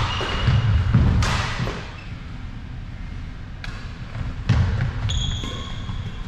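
Badminton doubles play on a wooden sports-hall floor: sharp racket strikes on the shuttlecock, thudding footfalls, and brief shoe squeaks on the court, one about five seconds in, all ringing in a large hall.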